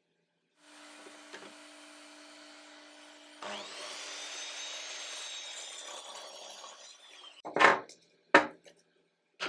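Metabo sliding miter saw running, then cutting through a hardwood board for about four seconds, followed by two sharp wooden knocks as the cut boards are handled.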